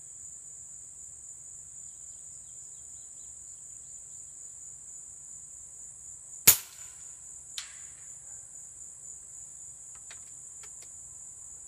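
FX Bobcat .25 calibre PCP air rifle firing a single shot: one sharp crack partway through, followed about a second later by a much fainter click.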